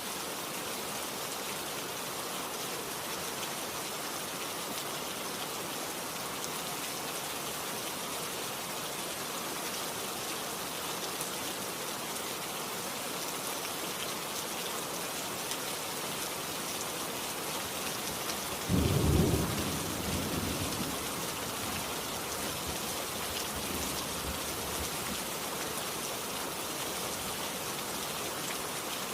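Steady rain falling. About two-thirds of the way through, a short, loud clap of thunder breaks in and rumbles away over a couple of seconds.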